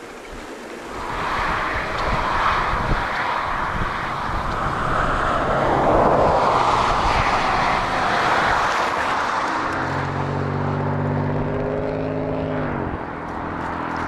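Steady rushing noise that swells and then eases over most of the stretch, followed about ten seconds in by a cow's long, low moo lasting about three seconds.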